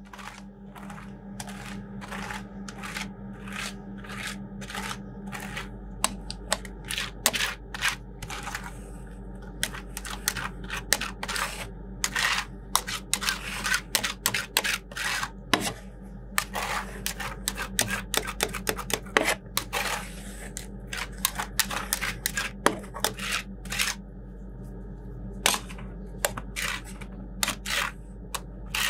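Metal spatulas chopping and tapping on a steel ice-cream cold plate: many sharp, irregular clicks, thickest through the middle, over a steady low hum.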